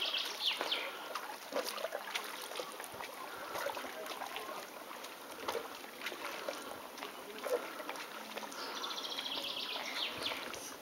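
Songbirds singing: a fast descending trilled phrase at the start and another, longer one near the end, with softer chirps in between.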